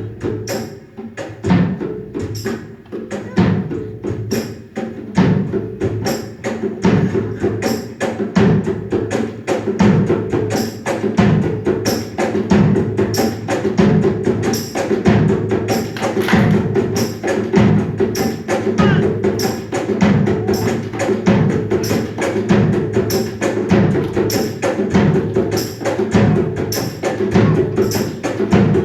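Background music with a steady percussive beat of wood-block-like clicks over a low pulse.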